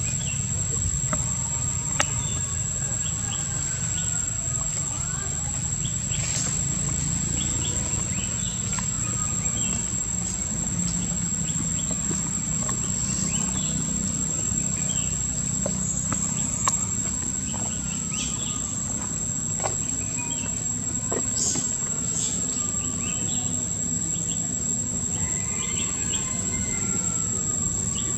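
Steady high-pitched drone of insects over a low background rumble, with occasional short rising-and-falling calls and two sharp clicks.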